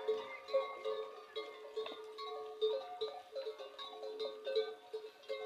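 Large metal bell hung on a camel's neck, clanking over and over as it swings, two or three irregular strikes a second, each leaving a ringing tone.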